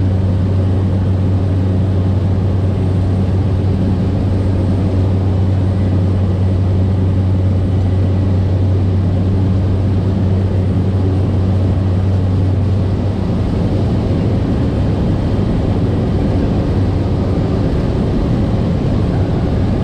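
Cessna 208B Caravan's single Pratt & Whitney PT6A turboprop and propeller running steadily, a deep, even low drone with fainter higher tones above it. About two-thirds of the way through, the drone turns rougher and less even.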